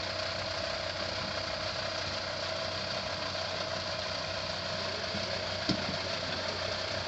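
SsangYong Rexton SUV's engine running steadily at low revs as it crawls over loose rocks, with one short sharp knock late on.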